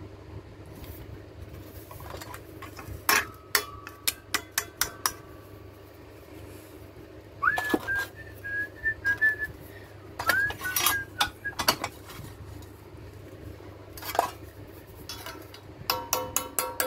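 Hammer blows on a steel strip held against a steel bar in a bench vise, each strike ringing, coming in runs with a fast run of about five blows a second near the end. Twice in the middle a few whistled notes rise and hold.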